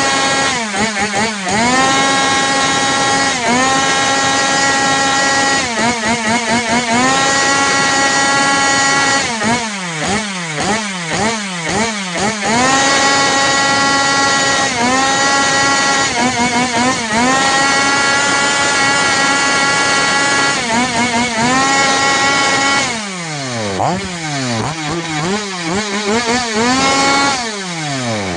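Stihl two-stroke chainsaw being revved hard without cutting: the throttle is opened to a high, steady scream held for a second or a few seconds, let off, and opened again over and over. There are bursts of rapid throttle blips in between.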